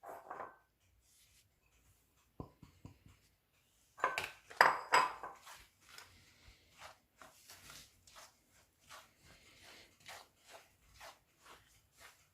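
Utensils knocking and clattering against a mixing bowl as desiccated coconut goes into the cookie batter. This is followed by an even run of soft mixing strokes, about two to three a second.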